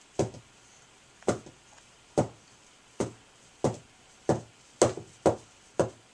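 A baby doll with a hard head being banged down repeatedly by a baby onto a carpeted floor: about nine dull thumps, coming faster toward the end.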